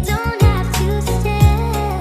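Background music: a sung melody over a steady bass line with a regular beat.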